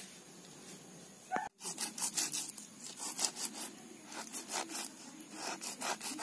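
Small fish being scraped and cleaned by hand on a wet stone slab: a run of short rasping scrapes, several a second, starting about a second and a half in.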